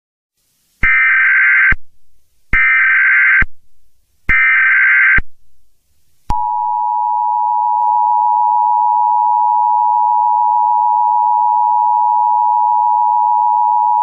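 Emergency Alert System tones: three short bursts of SAME header data, each about a second long, then from about six seconds in the steady two-tone attention signal (853 and 960 Hz together) held without a break.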